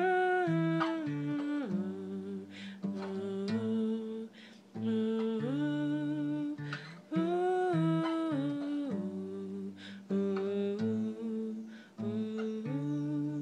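A woman humming a wordless melody in held, gliding phrases over a plucked acoustic guitar accompaniment.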